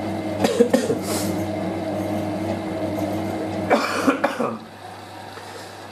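A person coughing, in short bursts about half a second in, about a second in, and again near four seconds in; the cougher is down with a cold. Under the coughs, a Hotpoint 9530W washing machine's motor hums steadily as the drum tumbles on its wash action, then stops about four and a half seconds in.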